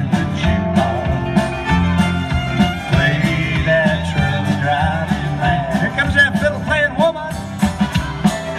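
Live country band playing an instrumental break between vocal lines on guitars and drums, with a fiddle playing a wavering lead line through the middle.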